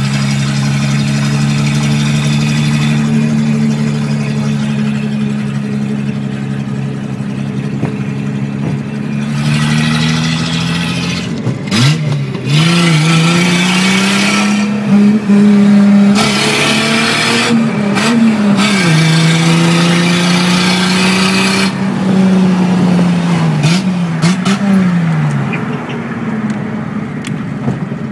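1977 Datsun 280Z's straight-six with a straight-pipe exhaust, heard from inside the cabin while driving. The engine holds a steady note for the first several seconds, then pulls hard from about ten seconds in, its pitch climbing and dropping back several times. It eases off near the end.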